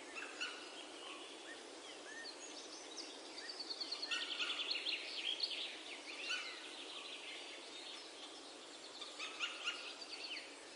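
Small birds chirping and twittering over a steady faint hiss, the chirps thickest in the middle.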